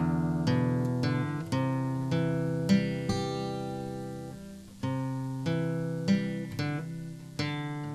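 Background music: guitar chords plucked and strummed, each chord ringing and fading before the next.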